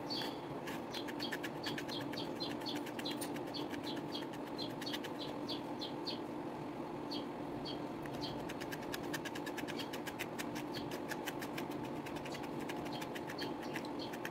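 A small brush scratching through strands of soft yarn in quick, repeated strokes, teasing the plies apart into fluffy fur. The strokes come a few times a second and speed up about halfway through, over a steady low hum.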